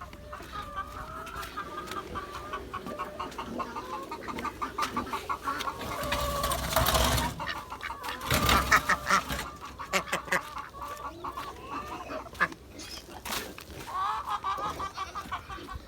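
Chickens clucking repeatedly in quick short notes, with two louder rushing noises about six and eight seconds in.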